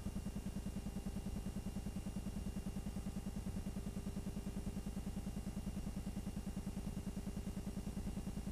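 Cine film projector running: a steady, fast, even clatter with a low motor hum.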